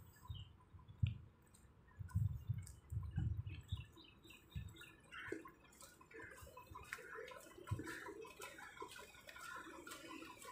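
Faint footsteps on asphalt, a few low thumps in the first half, then many small high chirps and ticks from about halfway in.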